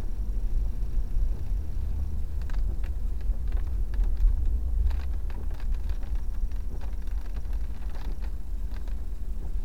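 Car driving slowly, its engine and tyres making a steady low rumble heard from inside the cabin, with scattered light ticks and clicks from about two seconds in.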